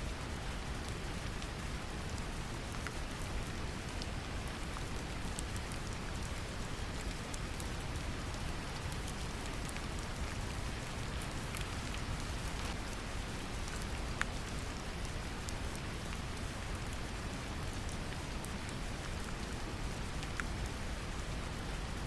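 Steady brown noise, a deep even rumbling hiss, mixed with gentle rain pattering, its individual drops heard as scattered light ticks.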